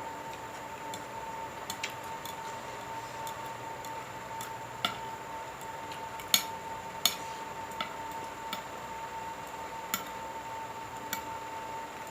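Scattered light clinks of a spoon against a plate while eating fried rice, about a handful of them, the two loudest a little past the middle. A steady high-pitched hum runs underneath.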